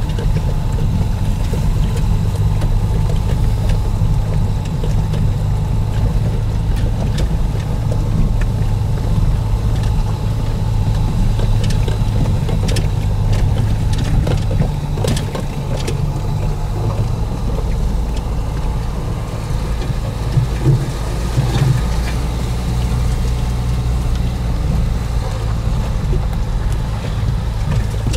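Dacia Duster crawling along a rough dirt track, heard from inside the cabin: a steady low engine and road hum, with a few sharp clicks and knocks from the bumpy ride about halfway through.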